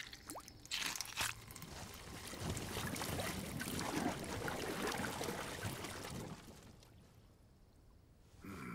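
A few sharp clicks, then a wet, crackling sound effect that swells and dies away over about five seconds as the creature is set upon in the coffin. A short, sharper sound comes near the end.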